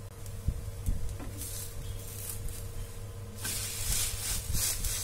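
Semolina uttapam being turned over in a hot nonstick pan with a wooden spatula: a few soft knocks, then a burst of sizzling about three and a half seconds in as the vegetable-topped side goes down onto the hot pan.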